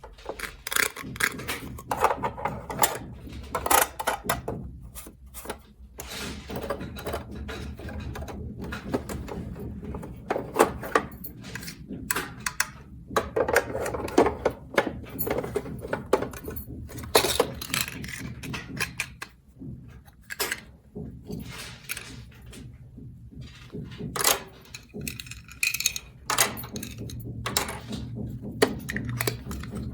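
Small toy pieces being handled: irregular light clicks, taps and clatters, like miniature kitchen items being set down and moved, over a faint steady hum.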